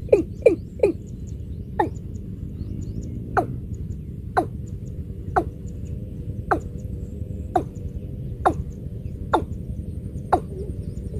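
Watercock calling: short, sharply falling notes, a quick run of about three a second at first, then slowing to about one note a second.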